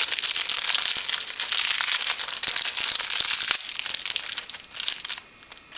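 Wrapper of a small toy surprise packet crinkling as it is handled and unwrapped by hand, dense crackling for about three and a half seconds, then lighter crinkles that die away about five seconds in.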